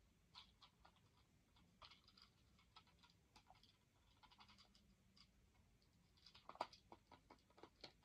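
Near silence with faint scattered clicks and scratches of plastic toy packaging being handled, and a short run of sharper clicks about six and a half seconds in.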